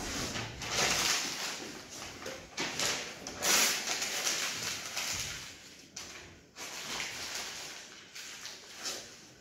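Sheets of paper rustling and crinkling as they are handled, in irregular bursts.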